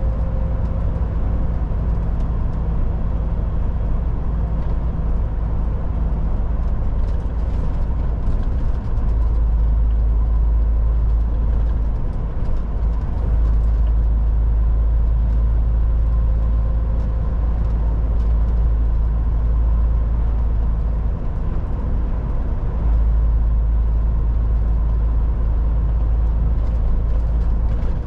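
MAN TGX 18.440 semi-truck driving at road speed: a steady deep diesel engine drone with road and tyre noise. The low drone eases briefly twice.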